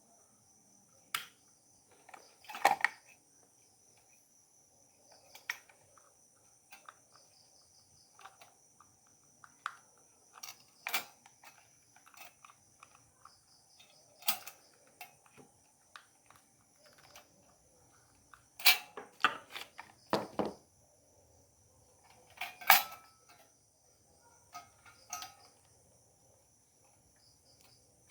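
Scattered clicks, taps and knocks as a hard disk and its cables are handled and fitted into a desktop computer case, with louder clusters of knocks two-thirds of the way through. A steady high chirring of insects runs underneath.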